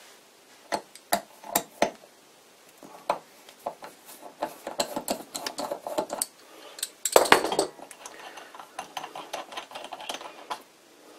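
Fingers handling a small brass wick oiler as its vent hole is opened: a scatter of light metallic clicks and taps, with one louder rub lasting about half a second about seven seconds in.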